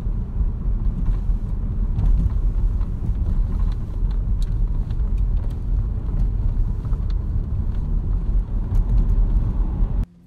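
Steady low rumble of road and engine noise inside a moving car's cabin, cutting off suddenly near the end.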